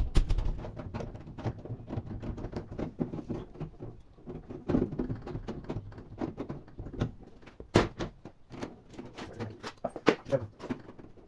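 Irregular clicks and light metallic taps as a cut sheet-steel repair patch is handled and pressed into a rust hole in a Peugeot Boxer rear door panel to test its fit. A sharp knock comes at the start and another about eight seconds in.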